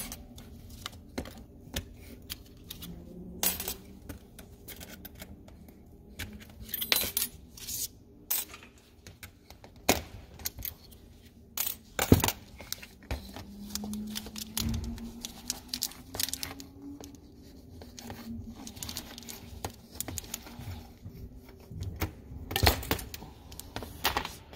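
Irregular metallic clicks and clinks of fuel injectors and their spring-steel retaining clips being pulled off a port-injection fuel rail and set down on a stainless steel workbench, with handling knocks of the rail itself.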